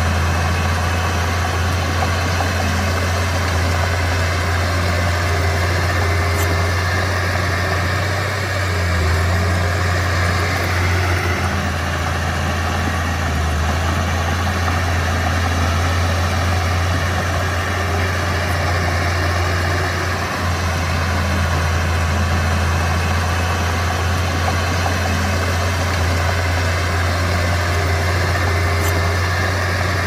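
Diesel engine of a Komatsu D31P crawler bulldozer running steadily with a deep, even drone that dips slightly in level a few times.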